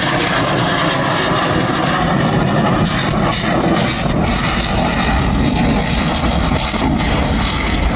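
Display aircraft's engine running at full power as it flies past, a loud, steady noise with no letup.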